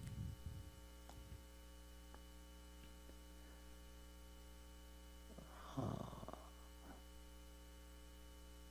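Near silence with a steady electrical hum, a few faint clicks in the first couple of seconds, and one brief soft noise about six seconds in.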